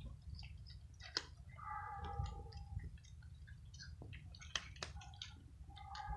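Cats crunching dry kibble, a steady run of small sharp crunches and clicks. Twice a held pitched tone of about a second sounds over the chewing, once about a second and a half in and again near the end.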